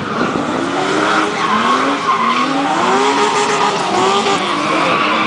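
Drift car's engine revving up and down over and over as it slides, with steady tyre squeal underneath.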